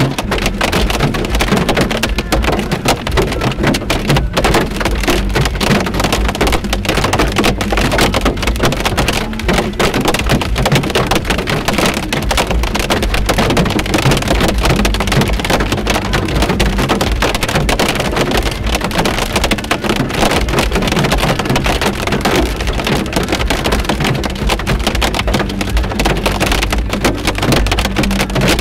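Hail and heavy rain pelting a car's roof and windshield, heard from inside the car: a loud, dense clatter of countless small hits.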